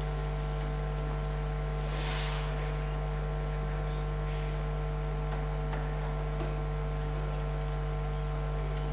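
Steady electrical mains hum, a low buzz with a stack of higher overtones that does not change. A brief soft hiss about two seconds in.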